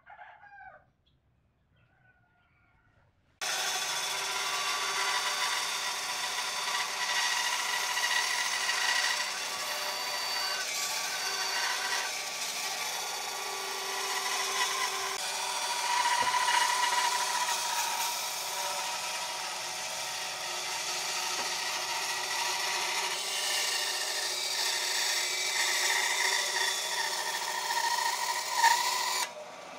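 A power tool working wood. It starts abruptly a few seconds in, runs steadily with a wavering whine, and cuts off just before the end.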